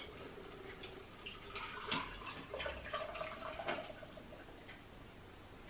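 A shaken cocktail strained from a copper Boston shaker tin through a Hawthorne strainer into a tiki mug: liquid trickling into the mug, with light clinks of ice against the strainer and tin, busiest in the middle.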